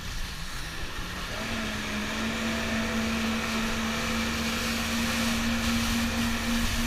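Jet ski engine running under way: its note dips briefly at the start, rises about a second and a half in as the throttle opens, then holds steady. Water spray hisses along the hull underneath.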